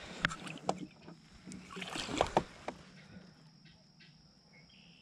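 Water splashing and sloshing as a big bass is released over the side of a boat, a few short splashes in the first three seconds, then it settles quiet.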